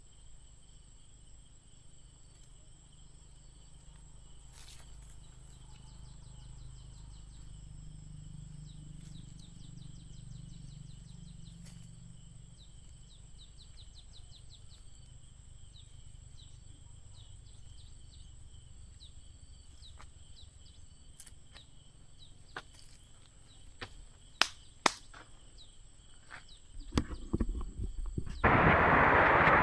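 Insects (crickets or cicadas) chirring steadily in two high, thin tones, with a few sharp clicks. Near the end the insect sound stops abruptly and a loud, steady rushing noise takes over.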